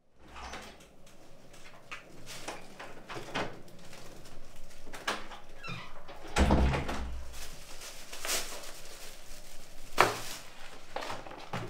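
Handling sounds in a small room: scattered light clicks, then a metal lever handle worked on a wooden door about six seconds in, with a heavy low thud as the door moves. A sharp knock comes about ten seconds in.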